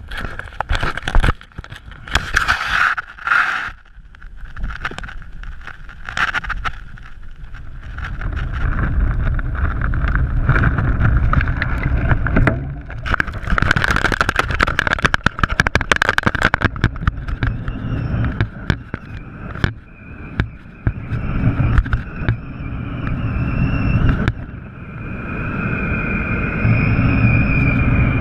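Wind buffeting a GoPro hung from a flying kite, with the kite's fabric flapping and knocking against the loosely fastened camera in many sharp clicks. From about two-thirds of the way in, a thin wavering whistle rides over the wind noise.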